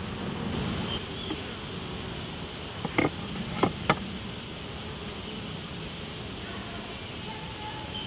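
Honeybees buzzing steadily around an opened top-bar hive, with three sharp wooden knocks about three seconds in as the hive's wooden top bars are taken out and stacked.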